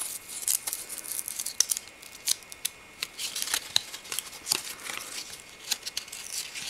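A stack of glossy Upper Deck MVP hockey cards being flipped through by hand, the cards sliding and snapping against each other in quick, irregular clicks.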